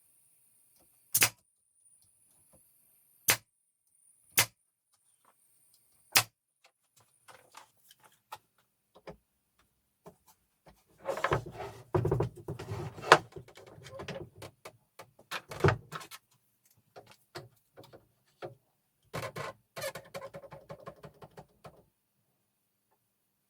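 Handling noise: four sharp knocks in the first six seconds, then two stretches of clattering and rubbing with one more loud knock between them.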